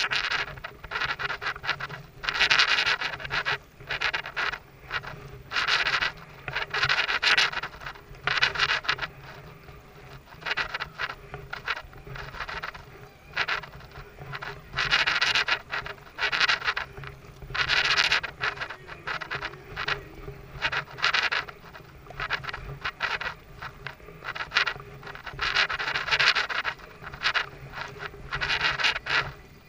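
Kayak paddle strokes: a noisy stroke every second or two, uneven in strength, over a faint steady low hum.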